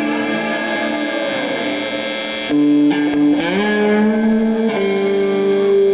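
Distorted electric guitar played live through an amplifier, holding long ringing notes. The notes change about two and a half seconds in, slide upward in pitch a second later, and settle on a new held note near the end.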